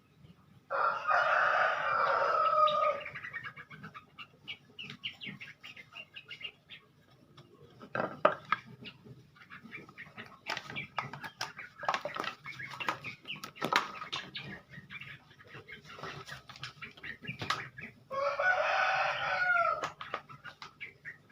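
A rooster crowing twice, each crow about two seconds long, one near the start and one near the end, with scattered short clicks and taps in between.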